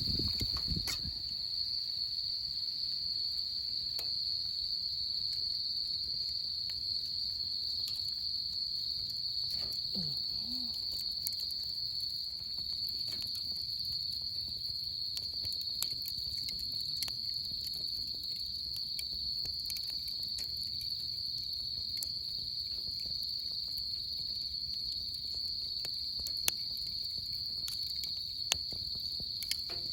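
A chorus of autumn crickets with one steady, unbroken high trill. Faint scattered clicks are heard, with two sharper ones near the end.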